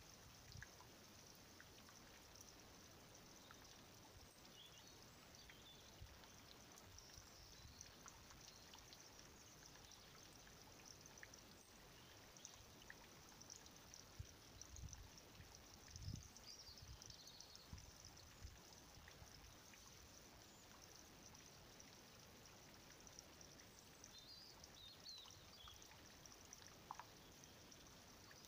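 Near silence: faint outdoor background hiss, with a few soft low bumps.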